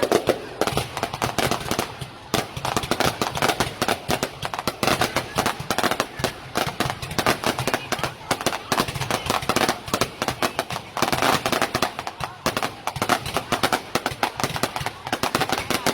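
Fireworks display: a dense, continuous crackle of many rapid small bangs, with no break.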